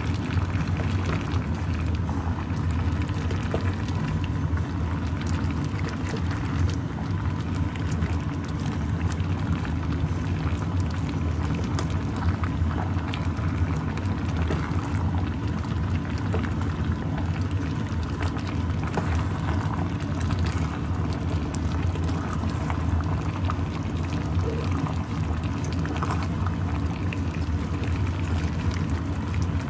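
Chicken and vegetable curry soup simmering in a pan: a steady bubbling over a constant low hum.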